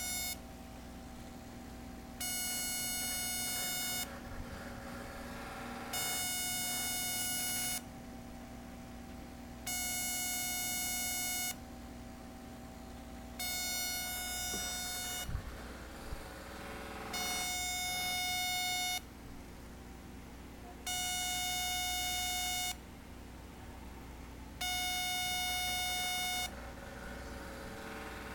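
A plasma-tube electromagnetic therapy machine running in its pulse cycle. A harsh, buzzy electronic tone about two seconds long sounds seven times, evenly spaced about four seconds apart, over a steady low hum.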